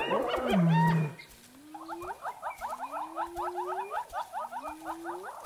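Spotted hyenas calling: loud calls with bending pitch for about the first second, then a fast, high chattering giggle of several short notes a second over repeated low rising calls.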